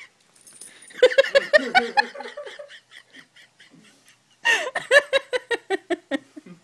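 Human laughter in two bouts of rapid, breathy pulses, the first about a second in and the second starting around the middle: laughing at a puppy's reaction to a squeezed lemon.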